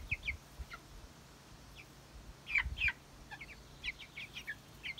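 Month-old Faverolles chicks peeping: short, high, falling chirps in scattered clusters, busiest about two and a half seconds in and again near four seconds.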